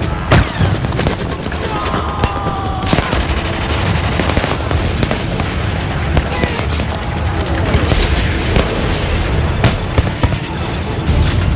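Dense barrage of bangs and crackling gunfire-like reports from battle-reenactment pyrotechnics, with a sharp loud bang just after the start. Fireworks go off near the end.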